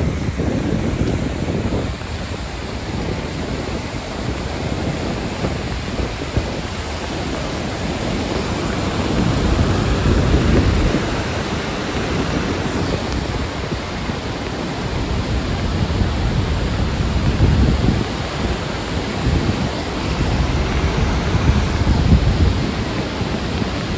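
Steady rush of whitewater from the Yellowstone River's rapids and falls, with wind gusting on the microphone in uneven low rumbles.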